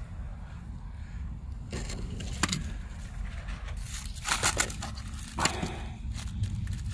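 Scattered crunches and scrapes of dry leaves and grit being disturbed, a few at a time, over a low steady rumble.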